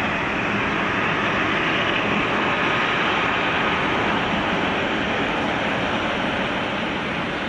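Boeing 777-200LR on final approach with gear down, its GE90 turbofan engines making a steady rushing noise with a faint high whine.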